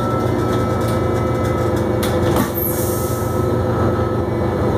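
Steady hum of an Iveco 12 GNV city bus's natural-gas engine heard from inside the passenger cabin at low speed. About two seconds in there is a click, then a short hiss.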